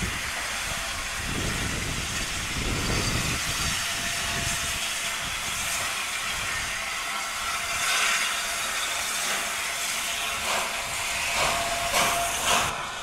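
Steam locomotive, the A1 Pacific 60163 Tornado, hissing steam as it moves its train of coaches through the station. A few short, sharp knocks come near the end.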